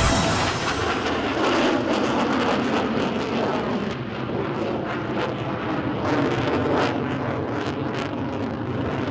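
Twin jet engines of an F/A-18 Hornet fighter in flight: a steady rushing noise with a rough crackle running through it.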